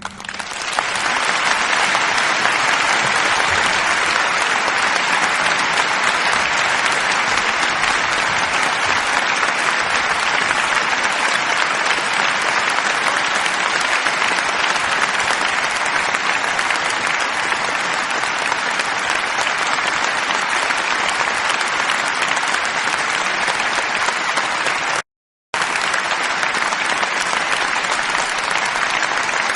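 Audience applauding: dense, steady clapping that swells up within the first second and carries on evenly, broken by a sudden half-second gap of silence about 25 seconds in before resuming.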